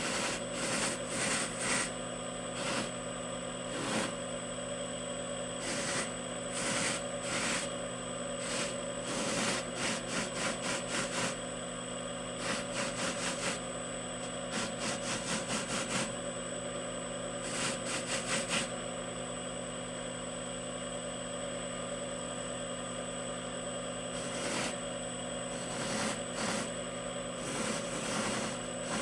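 Slow-turning three-phase buffer motor on a variable frequency drive, humming steadily with a high whine, while a briar pipe bowl is pressed against its sewn buffing wheel loaded with red compound, giving repeated bursts of rubbing, some in quick runs.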